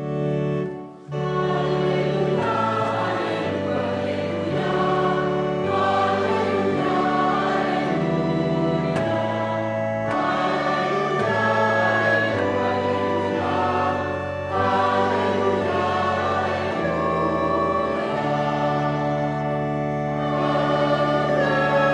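Choir singing sacred liturgical music, with held low notes underneath that change step by step.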